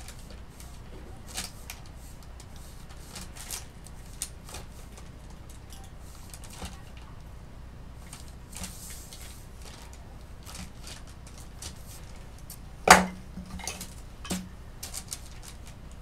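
Clay-modelling tools clicking and tapping now and then against the clay and the table, over a low steady hum. One much louder knock comes about thirteen seconds in, followed by a few smaller ones.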